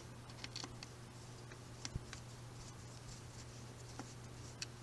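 Scattered faint clicks and taps of a Phillips screwdriver turning a screw into the painted metal legs of a beverage washtub stand as the parts are held and shifted. A low steady hum sits underneath.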